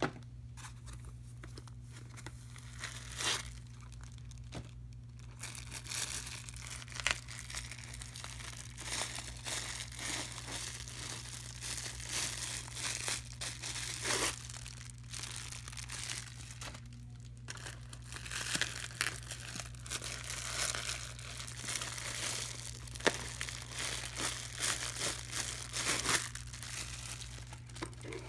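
Clear plastic bag and white foam packing crinkling and rustling in irregular bursts as they are handled and pulled out of boots, with small clicks and taps. A low steady hum runs underneath.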